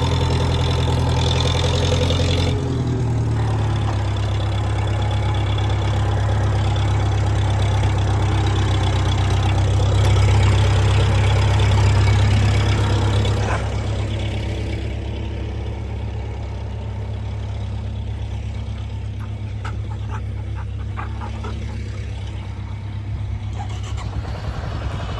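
Truck engine running on a gravity-fed fuel supply instead of a fuel pump, a steady low hum. It changes note about two and a half seconds in, grows louder around ten to thirteen seconds, then drops back as it moves off.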